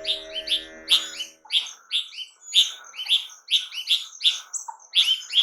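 Small birds chirping: a rapid series of short, high, repeated chirps, two or three a second, over a sustained background music chord that fades out about a second in.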